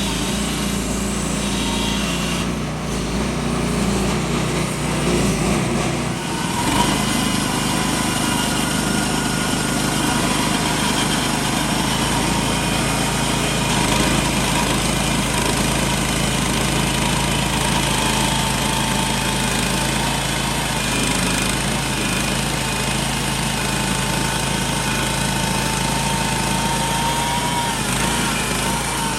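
Woodland Mills HM126 bandsaw mill running steadily, its small gas engine under load as the band blade cuts through a large black walnut log; a thin whine comes in about seven seconds in and holds.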